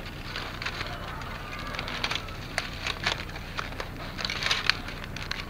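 Woven bamboo basket crackling and creaking as it is handled and turned, an irregular run of small clicks and rustles, the sharpest about four and a half seconds in.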